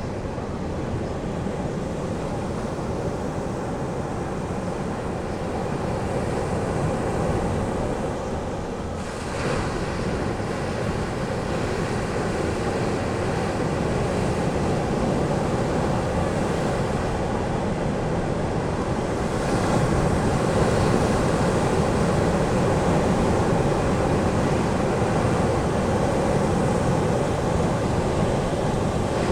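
Ocean surf breaking and washing onto the beach in a continuous roar of waves, growing louder about ten seconds in and again about twenty seconds in as bigger waves come in.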